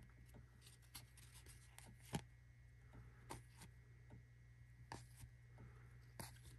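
Faint rubbing and light ticks of trading cards being handled, slid and flipped by hand, with one sharper tap about two seconds in.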